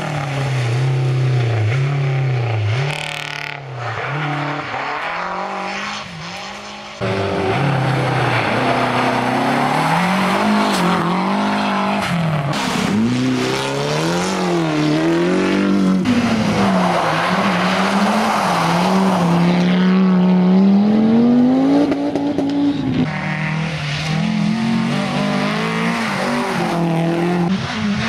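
Rally car engines revving hard past the camera, one car after another: the pitch climbs and drops repeatedly as they accelerate, shift and brake for the corners. The sound changes abruptly a couple of times where one car's pass cuts to the next.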